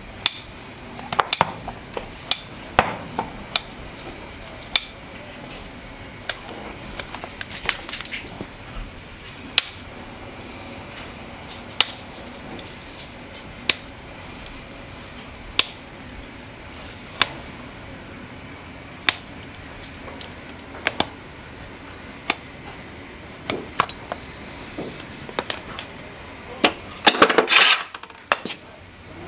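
Farrier's hand tools working a horse's hoof: sharp clicks and taps, irregular at first, then evenly about one every two seconds, with a brief louder burst near the end.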